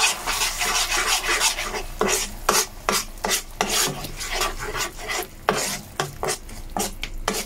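Metal spoon stirring and scraping a thick gochujang-based sauce around a pan, in repeated rough strokes about two a second.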